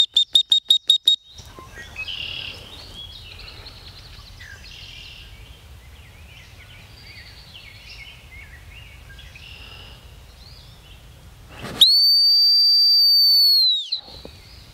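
Dog training whistle: a quick run of about eight short toots in the first second or so, the recall signal, then near the end one long steady blast of about two seconds, the stop-and-sit signal. Birds chirp faintly in between.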